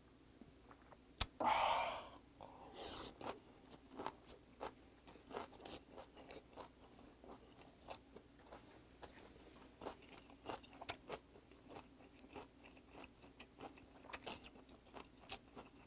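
Close-up chewing of raw flounder sashimi wrapped in kimchi, with many small wet crunching clicks. About a second in there is a sharp click, followed by a short breathy exhale.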